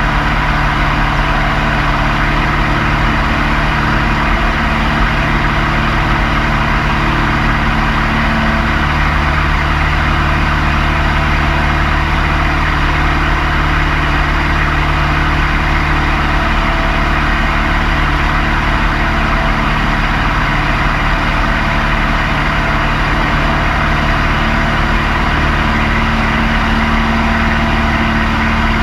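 Van's RV-4 light aircraft's piston engine and propeller running steadily in flight, a loud drone heard from inside the cockpit.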